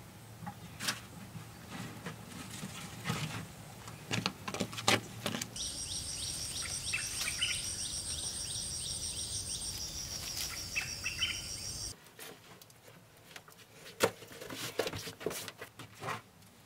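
Insects trilling steadily with short bird chirps mixed in for about six seconds, starting and stopping abruptly. Before and after are scattered knocks and clicks.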